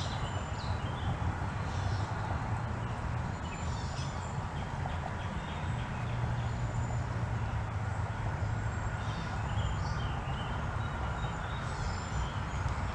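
Small birds chirping on and off over a steady low rumble.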